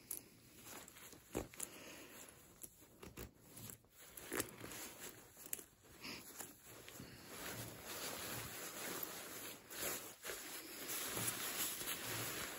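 Rustling of a Canada Goose Lodge Hoody's nylon shell and down fill as the jacket is handled and turned over, with scattered light clicks and taps. The rustling grows louder about halfway through.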